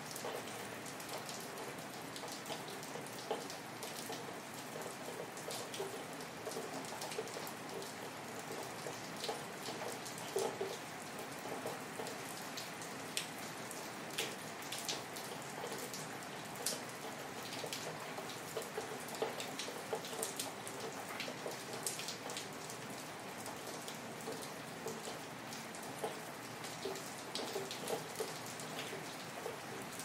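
Steady rain falling, with individual drops striking close by in scattered sharp ticks.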